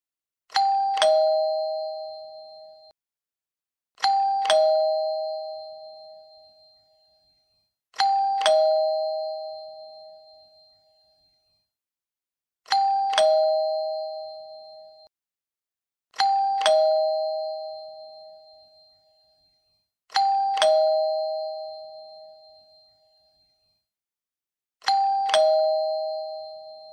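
Two-tone chime doorbell going ding-dong, a higher note then a lower one, each ringing out for a couple of seconds. It rings seven times, about every four seconds.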